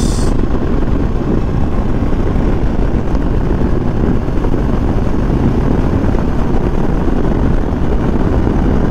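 Kawasaki Versys motorcycle cruising at a steady highway speed: engine drone mixed with heavy wind rush over the microphone, unchanging throughout.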